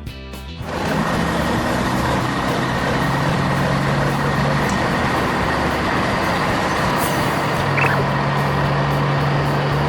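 Heavy truck engine running steadily, a low engine hum under a loud rushing noise that swells up about a second in.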